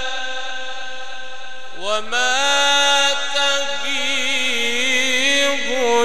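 Solo male Quran reciter chanting in the melodic mujawwad style. He holds a long note that fades, then about two seconds in begins a new phrase that rises in pitch and runs into wavering, ornamented melismas.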